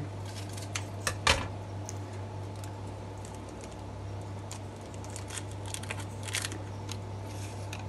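Scattered light clicks and taps, with one sharper knock about a second in, over a steady low hum.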